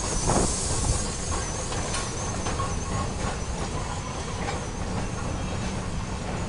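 Flagg Coal Co. No. 75, a small saddle-tank steam locomotive, passes with its open passenger cars. A short steam chuff comes just after the start, then a steady rolling rumble of the wheels on the track with faint clicks.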